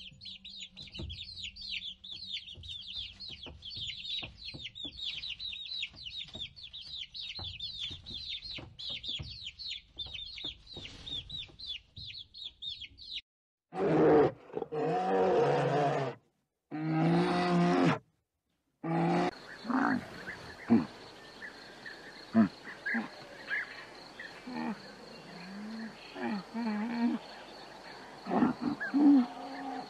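Baby chicks peeping in a rapid, continuous high chatter, until it cuts off about thirteen seconds in. Then a polar bear gives two loud, long pitched calls, followed by a camel's short, irregular grunting calls.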